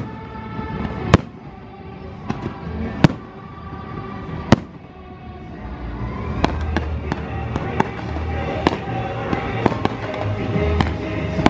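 Aerial fireworks bursting, with music playing underneath. There are single loud bangs about every second and a half at first, then a denser run of smaller pops and crackles from about six seconds in.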